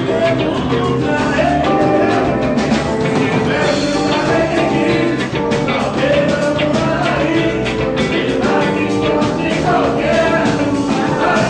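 Brazilian band playing an upbeat song with a steady beat, with some singing.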